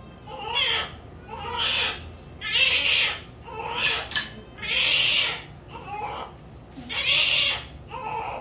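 Newborn baby crying in short, high-pitched wails, about one a second.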